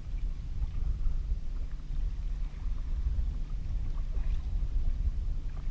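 Steady low rumble of wind buffeting the microphone on a kayak out on open water, with a few faint knocks about two-thirds of the way through.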